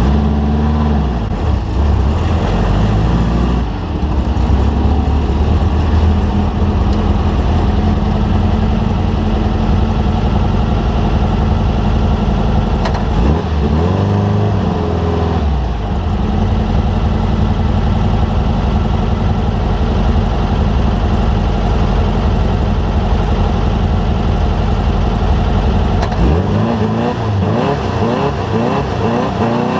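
Off-road race vehicle's engine running hard at high revs, with a steady rush of noise over it. The engine pitch dips and climbs back up about halfway through, and again several times near the end.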